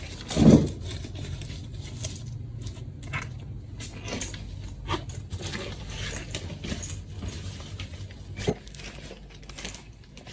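Rustling, clicking and rummaging of hands searching through a black quilted backpack and a small shoulder bag, with one heavy low thump about half a second in.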